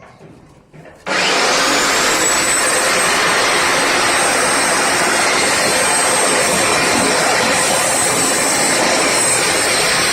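Electric core cutting machine switched on about a second in: its motor whine rises quickly to full speed, then it runs steadily with a loud, even noise.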